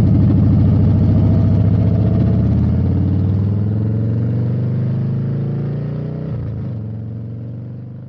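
An engine running steadily, fading out gradually toward the end.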